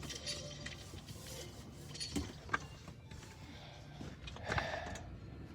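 Faint handling noise: two light clicks a little after two seconds in, and a brief rustle about four and a half seconds in.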